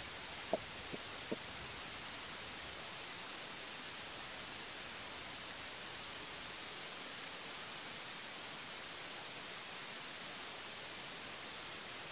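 A steady hiss with no other sound carrying through, broken by three short, faint ticks between about half a second and a second and a half in.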